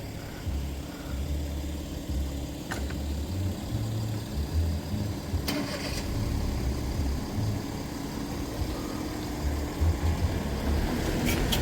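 A motor vehicle's engine running steadily at low revs, with patchy wind rumble on the microphone and a few short clicks.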